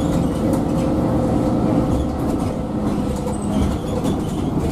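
Cabin noise inside a moving MAN Lion's City 12C city bus: steady engine and tyre noise with faint rattles of the interior fittings. A low steady whine comes in about halfway through and holds for a little over a second.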